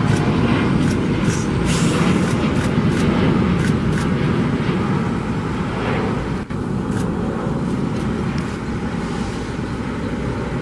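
Loud, steady rumble of a Boeing 787-9's Rolls-Royce Trent 1000 turbofan engines at takeoff thrust as the jet lifts off and climbs out.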